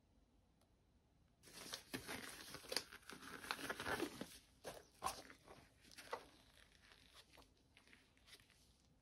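Thin black nitrile gloves being pulled onto the hands: a rubbery crinkling and rustling with a few sharp snaps, starting about a second and a half in and dying away after about five seconds.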